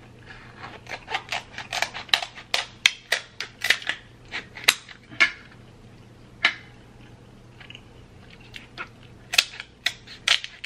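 Scissors snipping and cracking through a king crab leg's shell: a quick run of sharp snaps for about four seconds, a single snap, then a few more near the end.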